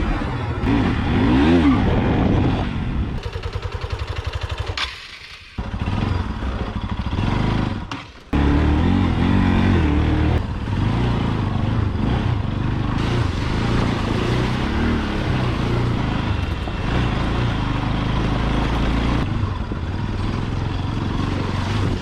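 Motorcycle engine running and revving on the move. The sound drops out sharply twice, about five and eight seconds in, then comes back at full level.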